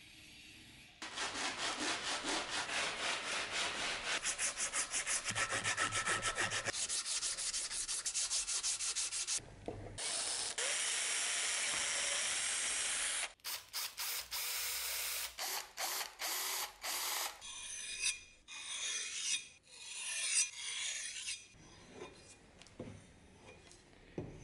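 Abrasive sanding and grinding on a steel cleaver blade and its wooden handle, in several short spells: quick rhythmic scraping strokes, a stretch of steady power-tool sanding, stop-start bursts, then slower strokes that fade near the end.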